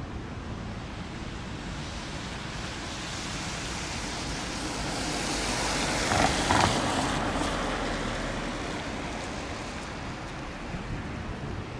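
Airbus A340-300's four CFM56 turbofans at take-off power: a steady jet roar that swells to its loudest just past the middle, with two brief louder spikes there, then fades as the airliner climbs away.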